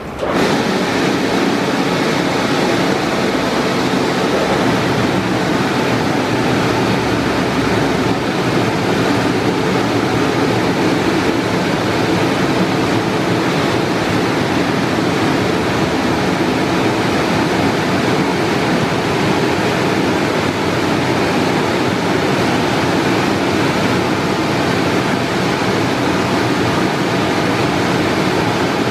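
Istobal M'Start rollover car wash gantry in operation: a loud, steady rushing noise that starts suddenly just after the beginning and holds even throughout.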